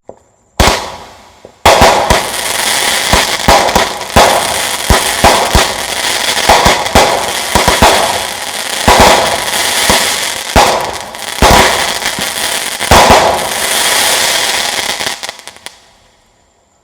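A 200-gram, 16-shot consumer firework cake (3D Pyro Web Slinger) firing. One sharp bang comes first. Then, about a second later, a string of launch shots roughly a second apart rides over a dense, continuous crackle from the crackling stars and palms. It tails off near the end.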